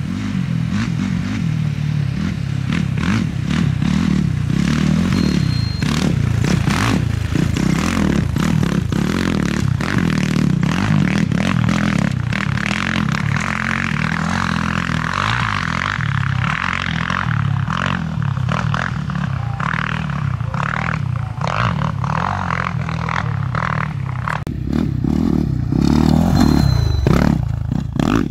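Off-road race dirt bikes running and revving as they ride along a sandy desert course, with scraping and clattering through it. It grows louder near the end as a bike comes close.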